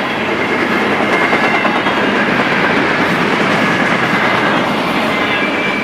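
Double-stack intermodal freight train's well cars rolling past: a steady, loud rumble and clatter of steel wheels on the rails, with a faint thin squeal now and then.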